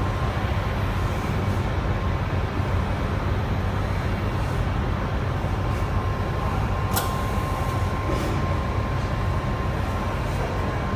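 Vertical form-fill-seal packing machine running: a steady low mechanical hum with a faint steady whine, and a brief sharp click about seven seconds in.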